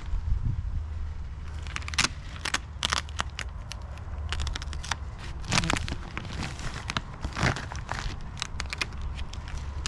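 Plastic sheeting being handled, crinkling and crackling in irregular bursts.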